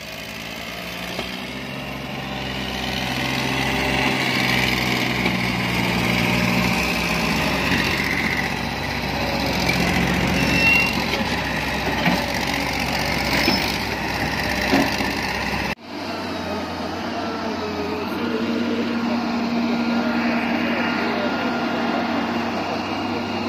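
Diesel engines of Massey Ferguson tractors and an excavator running steadily. About two-thirds of the way through, the sound cuts off abruptly and resumes with a different engine note.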